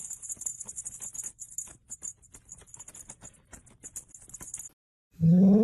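A fast, high shaking rattle like a shaker or small jingle bells, with faint taps, stops about five seconds in. Then a dog whines loudly, rising in pitch.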